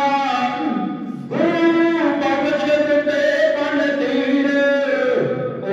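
Male kavishari singing, a Punjabi sung ballad. One line ends with a falling glide about a second in, then a long note is held for about four seconds before dropping near the end.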